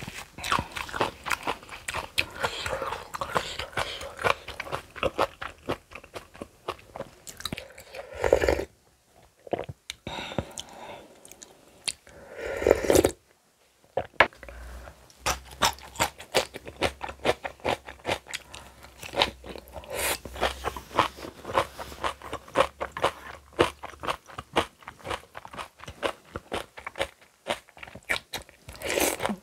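Close-miked eating: steady crunching and chewing of kimchi and noodles, with rapid wet mouth clicks. Two louder half-second bursts come about a third of the way in and near the middle.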